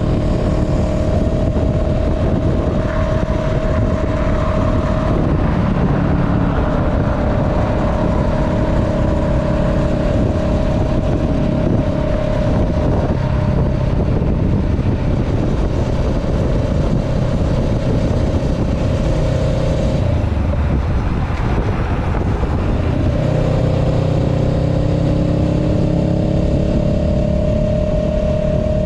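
Honda Rebel 500's 471 cc parallel-twin engine running at road speed, heard from the saddle over wind and road noise. About two-thirds of the way in the engine note drops out for a few seconds, then climbs steadily as the bike accelerates.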